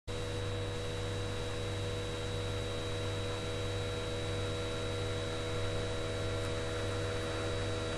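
Steady electrical hum with hiss, several steady tones held over it without change; it cuts in suddenly from silence at the start.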